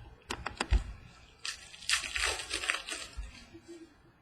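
Trading cards being handled: a few light clicks in the first second, then a rustling, crinkling slide of card stock and packaging lasting about a second and a half.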